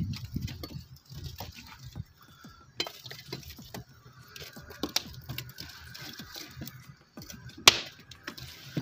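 Wood fire crackling and popping as a metal poker stirs and knocks the burning logs and embers, with one sharp crack near the end.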